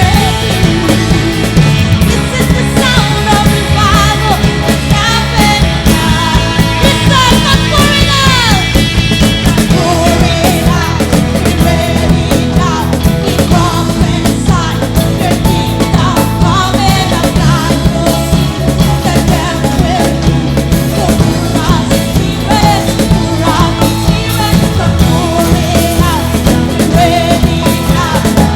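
Loud rock-style band music with drums, bass and a singing voice, playing continuously.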